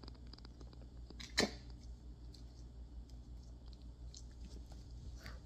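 Small terrier nibbling and licking at another dog's fur: faint soft chewing and clicking, with one sharper snap about a second and a half in.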